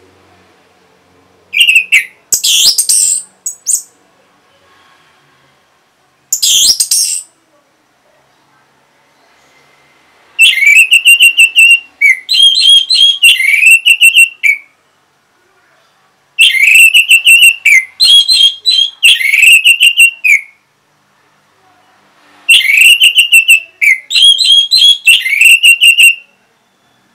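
Loud whistled bird song: a couple of short calls early, then the same phrase of rising and falling whistles repeated three times, about six seconds apart, with quiet gaps between.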